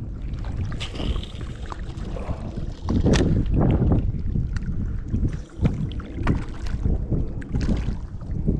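Wind buffeting the microphone, with small waves lapping and splashing at the water's edge. The sound is uneven, with a louder gust about three seconds in.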